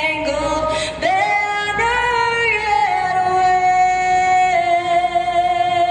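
A voice singing unaccompanied, holding long notes with vibrato; the last note is held steady for about three seconds.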